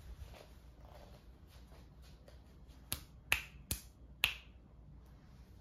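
Roaming Chucky bump-and-go animatronic prop running, with four sharp clicks a little under half a second apart about three seconds in.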